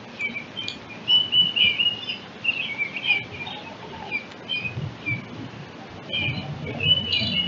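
Eastern bluebirds calling: short warbled chirps and whistled notes, in a busy run during the first half and another bout near the end.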